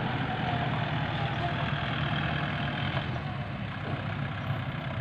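Diesel engines running steadily at low revs: a farm tractor idling close by while a dump truck drives up.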